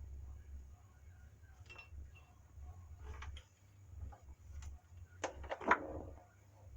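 Scattered light metallic clinks and knocks of tools and parts being handled, with a cluster of louder clanks near the end, over a low steady hum.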